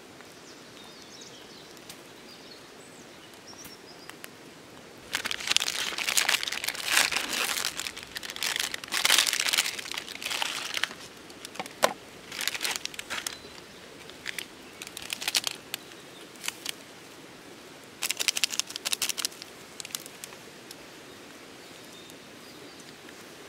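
Paper towel being crumpled and handled, in irregular bursts of crinkling: a long stretch, then shorter bursts, and another cluster near the end.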